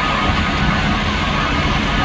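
Fire truck engine running steadily at the fire scene, a loud, constant mechanical drone with a faint steady hum in it.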